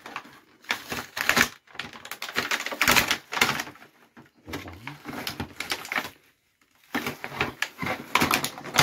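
Plastic toy packaging crinkling and clattering as toy tools are pulled out of a clear blister tray and bag, in quick runs of clicks and crackles with short pauses between them.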